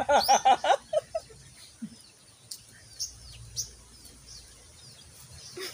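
A brief loud run of quick, repeated voice-like calls in the first second, then quiet outdoor background with scattered short, high bird chirps.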